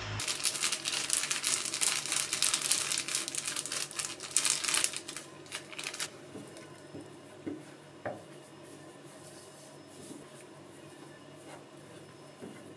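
Crinkling and rustling for about six seconds, then much fainter soft handling sounds with a few small clicks as raw chicken wings are pressed and turned in a flour coating on a wooden cutting board.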